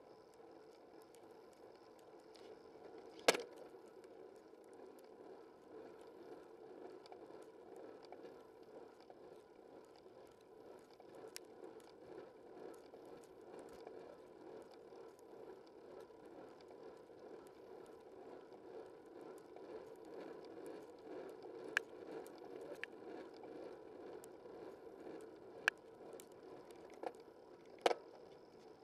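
Bicycle rolling along a road, a steady low rolling noise of tyres and bike. Sharp knocks and clicks break in now and then: the loudest about three seconds in, and several more near the end.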